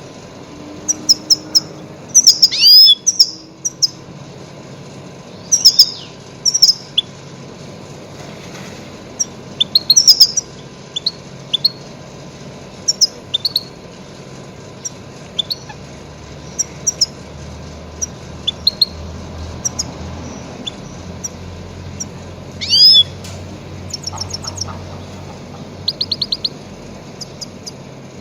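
Goldfinch calls: scattered short, high chirps and quick twittering runs, with a few louder sweeping notes, used as a lure call for trapping grey-headed goldfinches.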